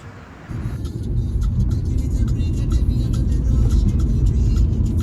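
Background music with a heavy bass and a steady beat, coming in about half a second in.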